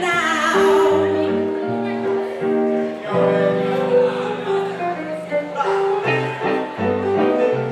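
Live blues played by a duo on hollow-body electric guitar and keyboard: an instrumental passage between sung verses, with a walking low line and a long held chord in the middle.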